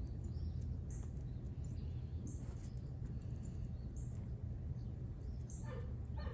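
Outdoor background: short high bird chirps every second or so over a steady low rumble, with a brief louder call near the end.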